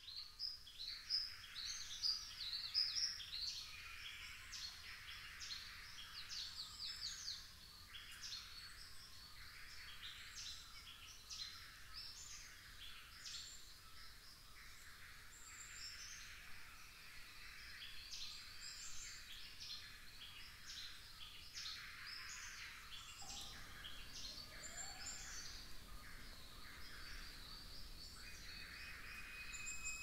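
A chorus of many rainforest birds chirping and whistling with overlapping short calls, busiest and loudest in the first few seconds, then a steadier background chatter.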